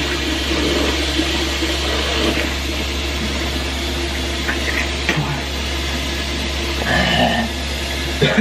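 Bathroom tap running steadily into the sink while a man rinses his mouth under the stream, with a few short splashes and mouth sounds about halfway through and near the end.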